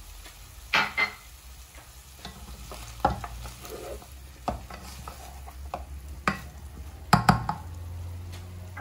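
A plastic spoon stirring meatballs and chopped tomato in a nonstick pot, with a few sharp knocks of the spoon against the pot, the loudest near the end. The meat sizzles faintly as it browns.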